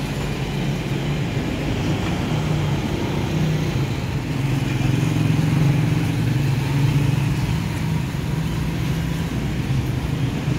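A motor vehicle's engine running steadily with road noise, its hum swelling a little around the middle.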